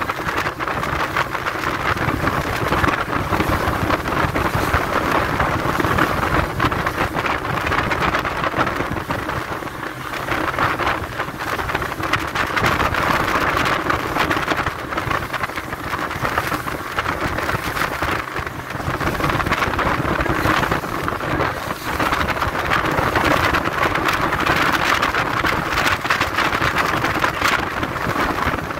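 Speedboat running fast over open water: a loud, steady rush of wind buffeting the phone microphone and water hissing off the hull, easing briefly now and then.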